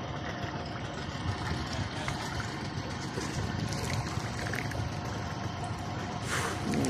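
A car wading slowly through floodwater: a steady engine hum mixed with the wash of water around it.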